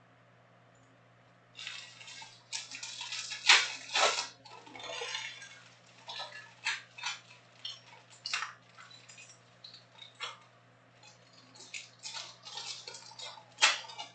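Foil wrappers of Topps Chrome trading-card packs crinkling and crackling as they are handled and opened, in irregular rustles starting about a second and a half in, over a faint steady low hum.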